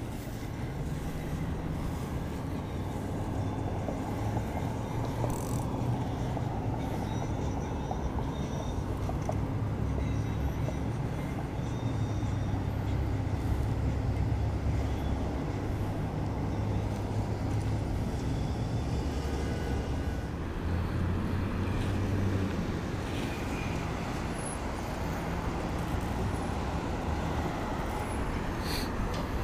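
Steady low rumble of road traffic going past.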